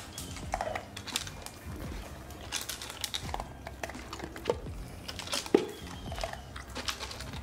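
Belgian Malinois puppy eating dry kibble from a plastic slow-feeder bowl: irregular clicks and rattles of kibble knocking against the plastic as she noses and chews it, the loudest knock a little past halfway.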